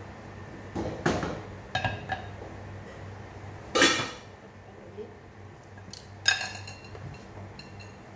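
Metal pot lid and kitchenware clattering: a few clinks and knocks, the loudest about four seconds in, and a ringing metallic clink a little after six seconds, over a low steady hum.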